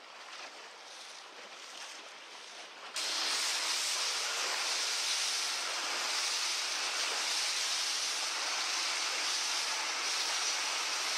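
Rushing water and wind buffeting the microphone from a boat under way at speed. It is faint at first, then jumps abruptly to a loud, steady rush of wake and wind about three seconds in.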